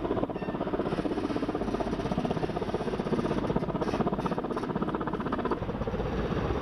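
Helicopter rotor beating with a steady, rapid thudding pulse.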